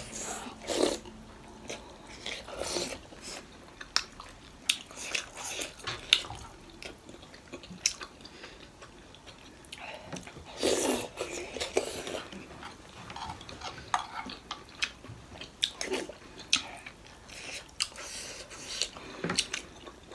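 Spoons and forks clinking against ceramic plates and a soup bowl, with chewing as momo dumplings are eaten. The sharp clicks are scattered irregularly throughout, with a few fuller mouth sounds about halfway through and near the end.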